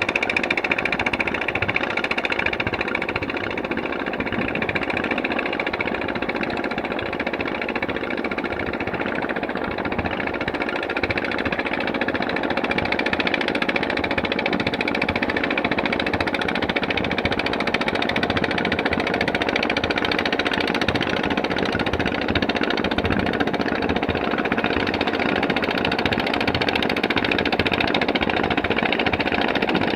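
An engine running steadily without letting up.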